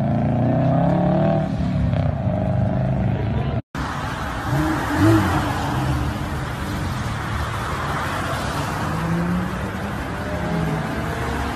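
Car engine and road noise: a lowered hatchback's engine as it pulls away, then, after a brief dropout about four seconds in, steady highway traffic noise with an engine note slowly rising near the end.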